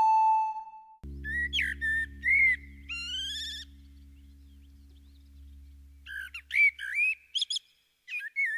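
Bird chirps and whistled trills, quick and sliding in pitch, in two spells, over a low held drone that fades out. A held flute-like musical note ends about a second in. This belongs to the slideshow's music soundtrack, not to live birds.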